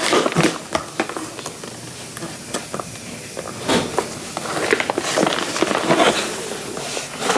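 Rustling, scraping and light knocks as a cardboard case of yogurt is handled and turned over.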